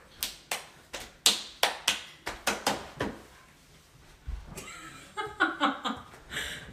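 A quick, uneven run of about ten sharp hand claps and slaps over the first three seconds, followed near the end by laughter.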